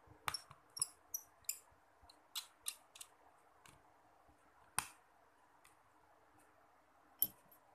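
Light, sharp plastic clicks and ticks as a precision screwdriver works the small screws of a smartphone's back frame and the phone is handled. There is a quick run of clicks in the first three seconds, a sharper one about five seconds in and another near the end.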